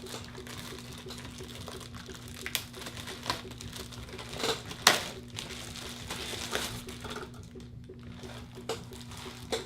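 Plastic packaging crinkling and rustling as it is pulled off a new computer power supply unit, with a few sharp clicks and knocks, the loudest about five seconds in, over a low steady hum.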